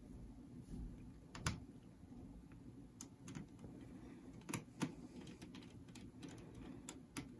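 Small precision screwdriver driving tiny screws inside an open laptop: a few scattered light clicks and taps of the metal bit and screws, the sharpest about one and a half seconds in.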